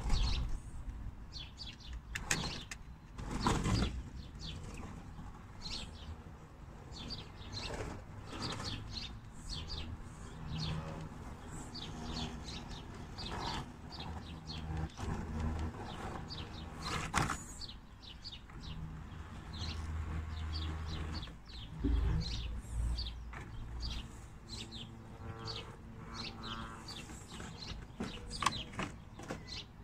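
Small birds chirping throughout, while the electric motor and gears of a radio-controlled Land Rover Defender model whir in spells as it crawls over rough garden ground. There are a few knocks and scrapes.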